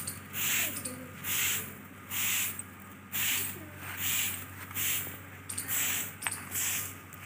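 A long grass broom sweeping a dusty floor, a swish on each stroke at about one stroke a second.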